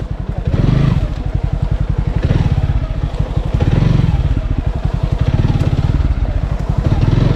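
Single-cylinder motorcycle engine running close to the microphone, its exhaust pulses steady and rapid, with the throttle opened and eased several times so the engine swells and falls back.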